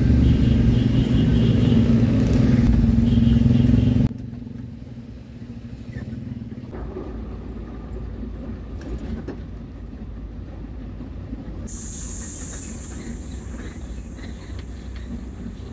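Steady engine and road drone inside the cab of a Mitsubishi L300 FB van on the move, which cuts off abruptly about four seconds in to a quieter, even road-and-traffic rumble. A high hiss joins the rumble near the end.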